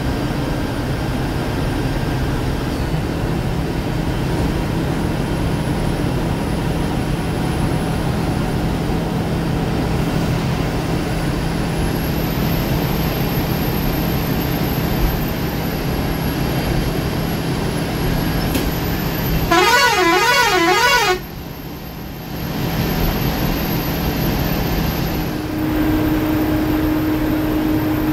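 Ashok Leyland sleeper bus's diesel engine running steadily with road noise, heard from the driver's cabin at highway speed. About two-thirds of the way through, a warbling horn sounds for about a second and a half, its pitch wavering quickly up and down.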